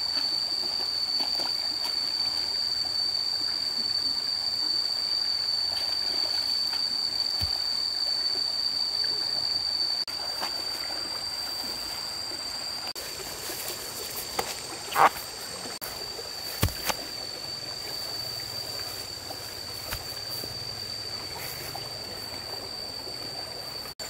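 Outdoor ambience of steady water-like noise, as of a stream, under a continuous high-pitched whine. The noise steps down in level about ten seconds in, and a few sharp knocks come in the second half.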